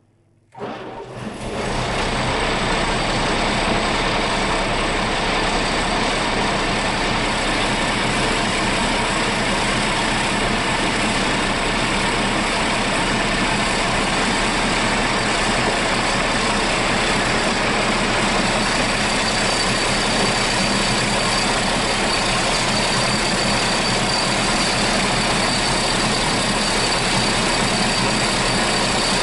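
Rebuilt diesel engine running steadily at idle. It comes in abruptly about half a second in and then holds an even, unchanging note.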